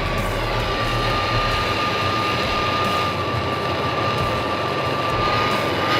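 MAP gas hand torch burning with a steady hiss and a thin, steady whistle, heating a cable lug packed with solder.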